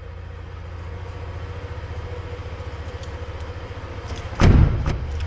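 Low steady rumble as heard inside a car, then a car door shut with a loud thump near the end.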